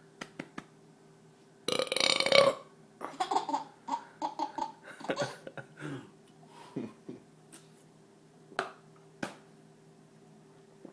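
A man's loud soda-induced burp about two seconds in, followed by a baby laughing in short bursts for several seconds; a few sharp clicks near the end.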